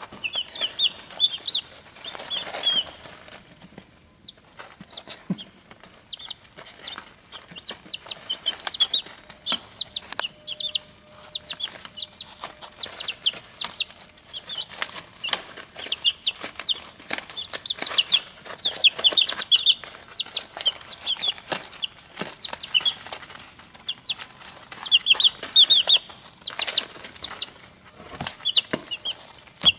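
Barred Rock chicks peeping in clusters of short, high, falling chirps, over the clicks and rustle of them scratching and pecking in wood shavings.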